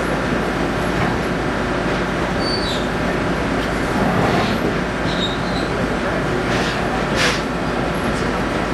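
Passenger railcar rolling along the track, heard from inside the dome car: a steady rumble of wheels and car body, with a couple of short high squeaks and a sharp knock about seven seconds in.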